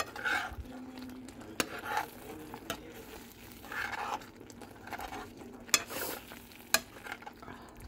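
A utensil stirring and scraping in a pan of turkey sausage and tomato sauce, with a faint sizzle and a few sharp clicks of the utensil against the pan.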